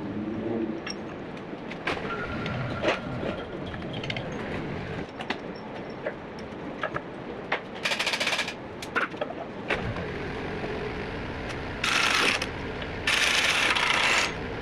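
Pneumatic impact wrench run in three short bursts, about two-thirds in and twice near the end, the last the longest, as bolts are taken out of a dozer's rear hitch. Light metal clinks of tools and parts in between.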